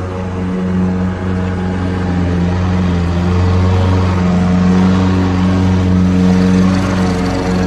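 Lawn mower running steadily at a constant pitch, a low hum that gets a little louder in the second half.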